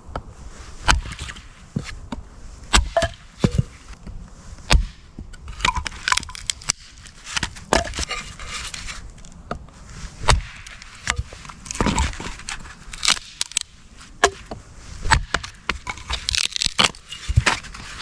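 Dry sticks and branches being snapped and broken up for firewood: a run of sharp cracks and snaps at irregular intervals.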